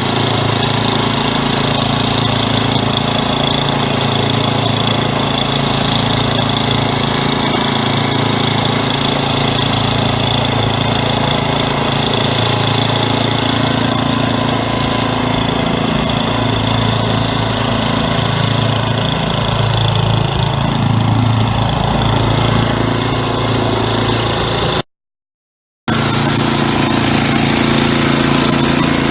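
Craftsman 10/30 snowblower's engine running steadily while the machine drives itself along under power on a test run through its gears. The sound drops out for about a second near the end, then the engine resumes.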